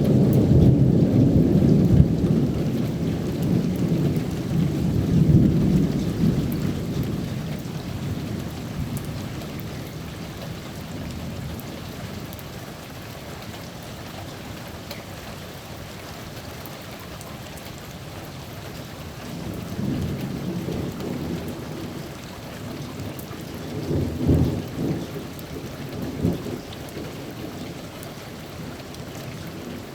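Thunder rumbling over steady rain, the rumble dying away over the first several seconds and leaving the hiss of rain. A second, fainter roll of thunder comes about two-thirds in, with a few sharper peaks near the end.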